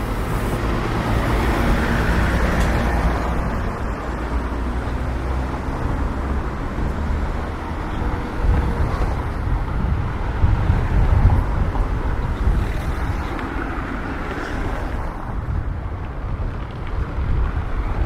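City street ambience: steady traffic noise from passing vehicles, with low rumble from wind on the microphone.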